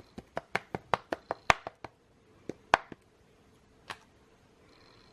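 A rubber stamp tapped down again and again on the craft table, a quick run of about five light taps a second for two seconds, then three more spaced-out taps.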